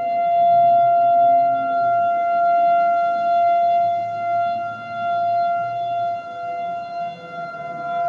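Outdoor civil-defense warning siren sounding a steady, unwavering tone in its routine monthly test. The tone swells and fades in loudness every couple of seconds.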